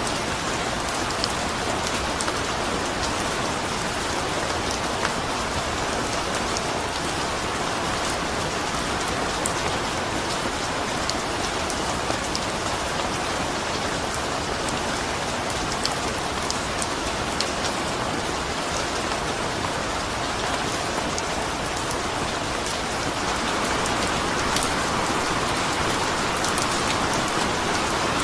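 Steady rain falling and pattering on a surface, with individual drop ticks through a dense even hiss; it grows slightly heavier about three-quarters of the way through.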